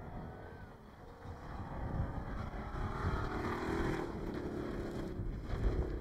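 Off-road race truck engine revving hard as the truck drives past on a dirt track. It grows louder about halfway through, and its note climbs and drops near the end.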